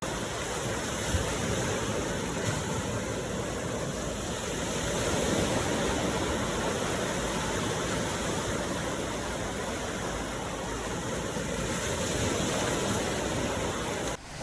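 Ocean surf: a steady rush of waves washing in, swelling slightly around the middle, that starts and cuts off abruptly.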